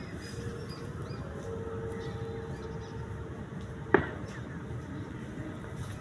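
Steady outdoor background noise, mostly a low rumble, with a faint steady hum for a couple of seconds and a single sharp click about four seconds in.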